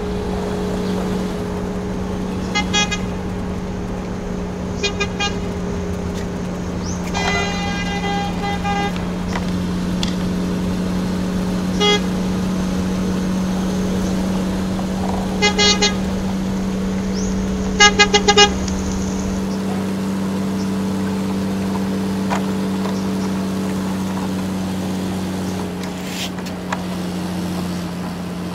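Truck horn tooting in short bursts over a steady low engine-like hum: single toots about 3 and 5 seconds in, a longer honk around 7 to 9 seconds, another toot near 12 seconds, and pairs of quick toots near 16 and 18 seconds.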